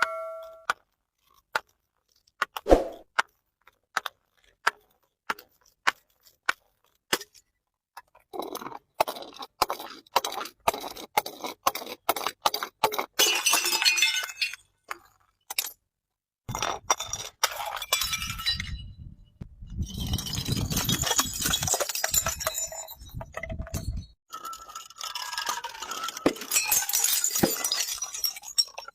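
Glass being broken and crushed. Single sharp clinks and knocks come first, then long runs of dense crunching and shattering of glass pieces, with a heavier, lower-pitched crushing stretch partway through.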